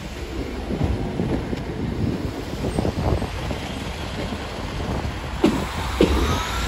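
A diesel multiple unit train running through the station, a steady low rumble with wind buffeting the microphone and two knocks near the end.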